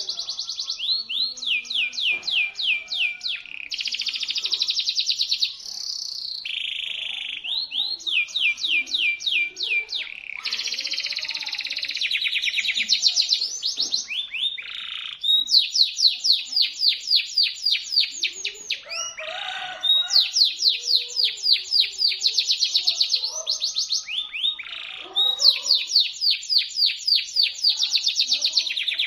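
Domestic canary singing a long, loud song: phrases of rapidly repeated high sweeping notes and trills, one after another, with only short breaks between phrases.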